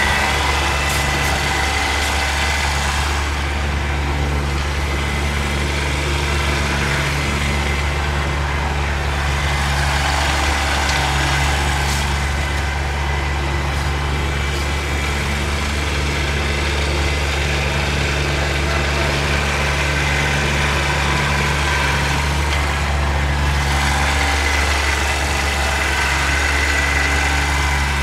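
Kubota BX compact tractor's three-cylinder diesel engine running steadily at a constant speed, a deep drone with a thin high whine over it.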